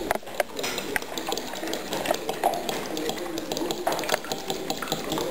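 A fork clicking and scraping against ceramic bowls and plates in quick, irregular clinks, as when beating egg and handling the crumb bowls.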